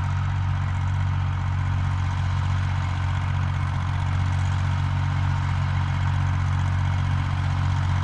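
Ursus C-360-3P tractor's four-cylinder diesel engine running at a steady, even speed during a field-spraying pass, a constant low drone with no change in revs.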